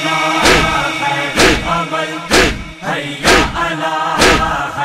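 Men's voices chanting a noha lament together while a crowd of mourners beats their chests in unison for matam. The strokes are loud and regular, about one a second, five in all.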